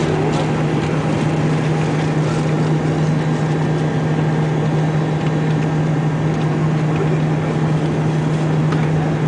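Cabin noise inside an Airbus A300 on final approach: the steady drone of the jet engines and rushing air, with a constant low hum running under it.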